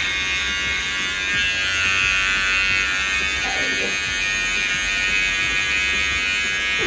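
Cordless electric hair trimmer running with a steady high-pitched buzz, its blade held against a man's beard as it trims.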